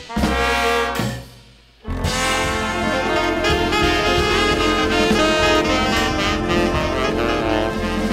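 Jazz horn section of brass and saxophones with drum kit: a held horn chord stops about a second in, then the full band with drums comes back in about two seconds in and plays on.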